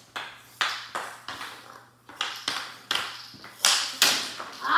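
Plastic mini hockey sticks clacking on a hardwood floor and striking a small ball in quick, irregular taps, about eight sharp hits in under five seconds.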